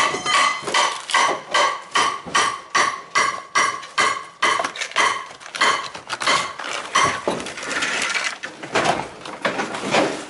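A hammer striking metal in a quick, even rhythm, about two to three ringing blows a second, for the first six seconds or so. After that come irregular knocks and the scraping and crumbling of rotted roof decking and debris being torn out by hand.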